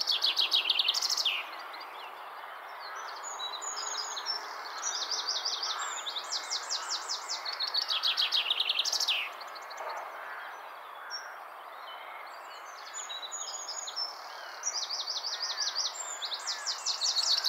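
Common chaffinch singing: a song phrase repeated several times, each a fast series of notes that speeds up and ends in a downward flourish.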